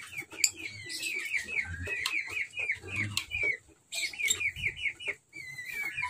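Lovebird chattering: a fast run of short, repeated chirps, about four to five a second, that breaks off briefly twice.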